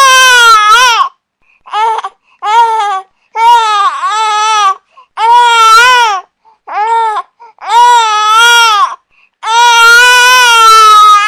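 Infant crying hard: a run of about eight loud, high wails, some short and some near two seconds long, broken by brief gasps for breath.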